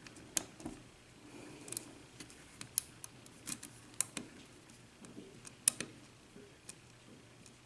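Faint, irregular small metallic clicks and ticks of a lock pick working the pins of a 5-pin Corbin euro cylinder lock held under tension, pins clicking as they are lifted and set.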